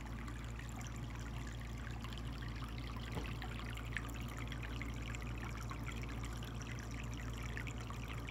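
Steady trickle of water from a Cascade 1000 pond filter's outflow running back into the pond, over a low steady hum.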